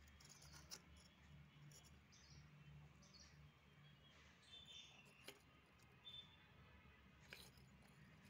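Near silence: a faint low hum, with three soft clicks of small fired-clay dishes knocking together as they are handled, and faint bird chirps.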